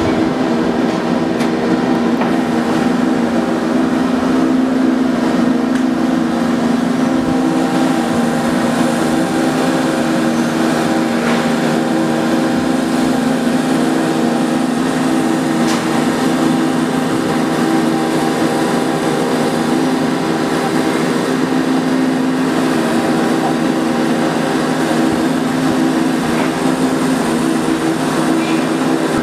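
Engine of a shipyard mobile boat lift running steadily with an even hum while it lowers a boat in its slings toward the water.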